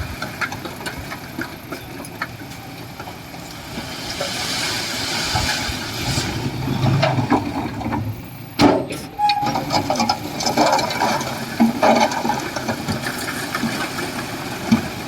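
Komatsu bulldozer's diesel engine running under load, with scraping, clanking and knocking as rock and soil are pushed. There is a loud bang about eight and a half seconds in.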